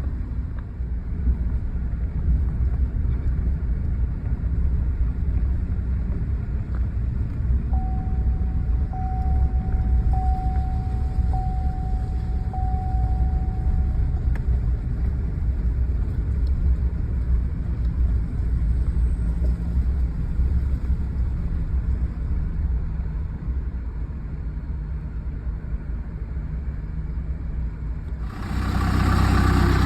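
A vehicle engine running steadily with a low rumble. From about 8 to 14 seconds in there is a run of beeps, and near the end the sound suddenly gets louder and fuller.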